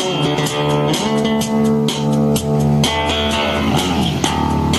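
Background music led by guitar, with bass and a steady beat.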